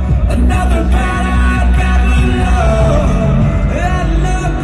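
Live rock band playing, with a male lead singer singing into a microphone over drums and heavy bass, loud and steady as heard from the audience.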